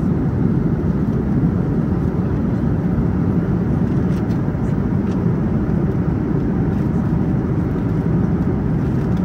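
Steady low rumble of a moving vehicle, even and unbroken throughout.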